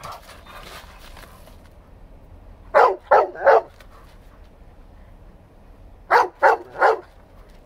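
Giant Schnauzer barking at a squirrel: two quick runs of three loud barks, about three seconds apart.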